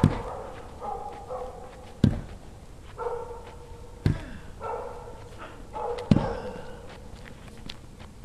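Four heavy thumps, about two seconds apart, with short wailing cries in between, somewhat like a dog whining or howling.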